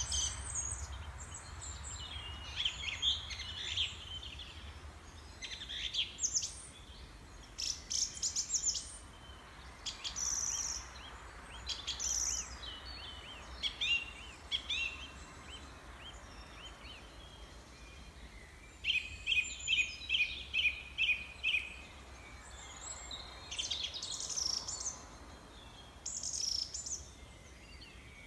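Several small songbirds chirping and singing in short, scattered phrases. About two-thirds of the way in, one bird gives a quick run of about eight repeated notes, roughly three a second.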